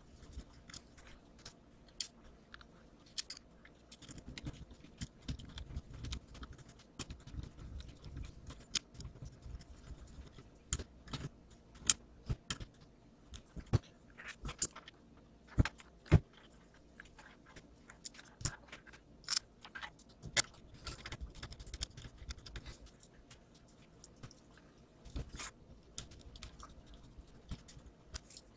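Irregular clicks, taps and rustling of small plastic and metal model-kit parts being handled and screwed together with a hand screwdriver, with the sharpest knocks about halfway through.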